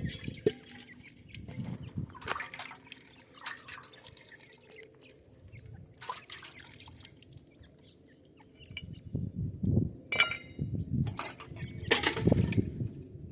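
Partridge chicks drinking from a water dish: irregular soft pecks, drips and small splashes, busier in the last few seconds. A short high peep about ten seconds in.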